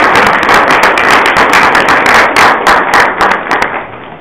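Audience applause: many people clapping at once, dying away near the end.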